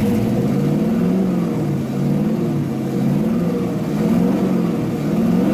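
LS1 V8 engine revved in repeated blips by hand at the throttle, its pitch rising and falling about once a second.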